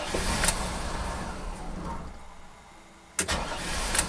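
Chevy 454 V8 in a motorhome stalling and being restarted: it runs, fades down and nearly dies around two seconds in, then is cranked and fires again suddenly about three seconds in. The stalling is the owner's sign of a dying fuel pump starving the engine.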